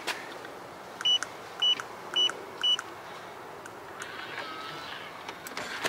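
Electronic keypad door lock beeping four times, about half a second apart, as a four-digit entry code is keyed in, one high beep for each button press.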